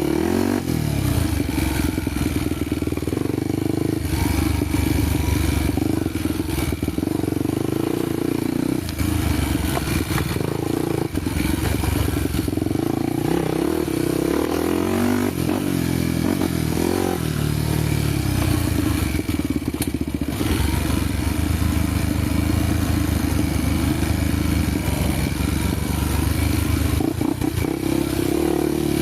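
Honda motorcycle engine running while riding an off-road trail, its note rising and falling with the throttle.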